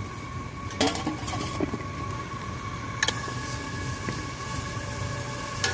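Wire-mesh skimmer knocking against a steel cooking pot and plate while blanched cauliflower florets are scooped out of hot water, a few sharp clinks about a second in, near three seconds and at the end. A steady low hum runs underneath.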